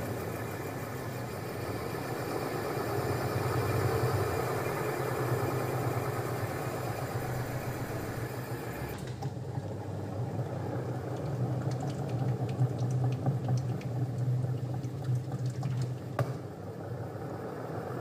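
Sharp top-loading washing machine running on spin, its motor and gearbox making a steady low hum as the tub turns; with the gearbox replaced, the tub now spins freely instead of only the pulsator turning. The hiss drops about halfway through, and there is one sharp click near the end.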